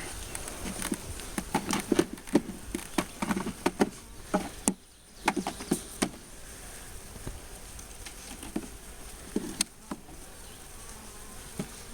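Honey bees buzzing close by in short passes, with scattered clicks and knocks through the first half.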